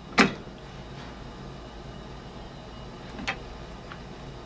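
A click-type torque wrench on a motorcycle rear wheel's sprocket bolts gives one sharp click about a quarter of a second in, the sign that a bolt has reached its set torque. A fainter metallic click follows about three seconds in, over a low steady hum.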